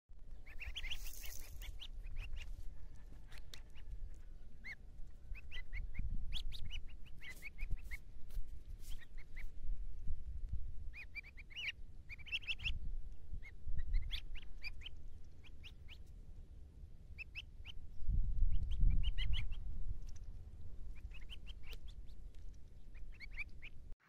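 Kars goose goslings peeping: short, high peeps in quick clusters, over a low rumbling noise that swells now and then.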